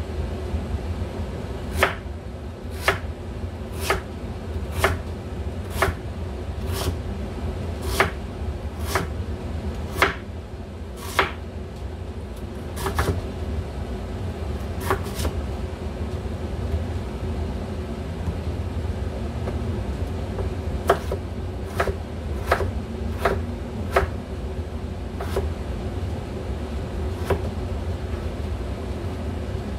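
Kitchen knife slicing radish thin on a wooden cutting board: sharp knocks of the blade on the board about once a second, with a pause in the middle, over a steady low hum.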